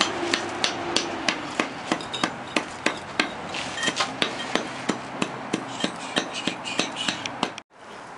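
Hand tamper's flat metal plate pounding down on a bed of sand between concrete pavers in an even run of sharp thuds, about three a second, compacting the sand; it cuts off suddenly near the end.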